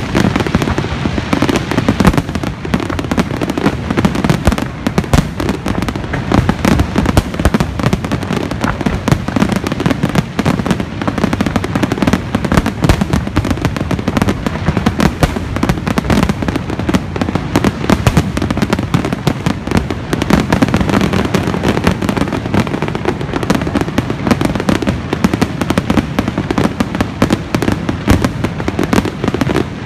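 Fireworks finale barrage: aerial shells bursting in rapid, overlapping succession, a dense, unbroken run of bangs and crackles with no pause.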